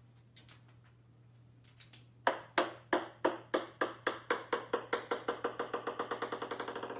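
A small ball bouncing on a hard wooden floor. The bounces come faster and fainter as the ball settles, starting about two seconds in.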